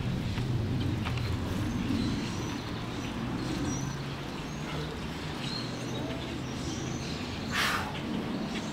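Outdoor ambience: small birds chirping over a low steady hum like nearby traffic or an idling engine, which fades after about six seconds. A short rushing noise comes about seven and a half seconds in.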